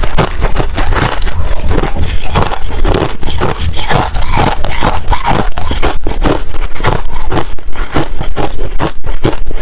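Close-miked crunching and chewing of ice, a dense run of sharp crunches and crackles one after another.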